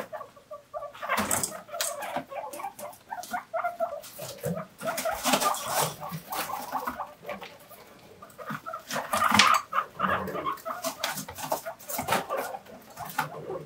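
Several guinea pigs wheeking over and over, short high calls overlapping one another: begging for vegetables.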